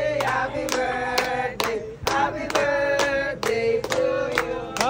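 A group clapping hands in a steady beat, about two claps a second, with voices singing along over the claps.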